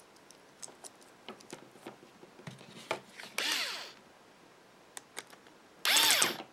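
Small clicks and handling sounds of plug parts, then a cordless electric screwdriver whirring briefly about three and a half seconds in and again, louder, near the end, each run speeding up and winding down as it drives the wire terminal screws of a plug tight.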